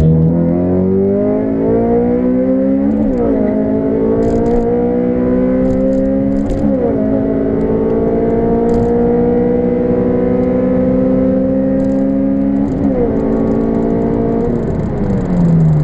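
Honda Civic Si's modified 2.0-litre four-cylinder engine, heard from inside the cabin, pulling hard with the revs climbing through the gears. There are quick upshifts about three, six and a half and thirteen seconds in. Near the end the throttle is lifted and the revs fall away.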